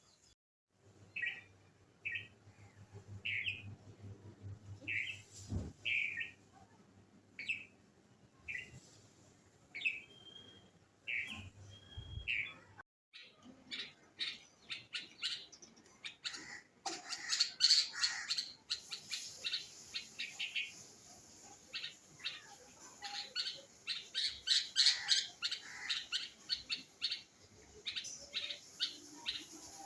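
Songbirds chirping. For the first dozen seconds a bird gives short calls about once a second. Then, after a brief break, several birds chirp rapidly and continuously, more loudly.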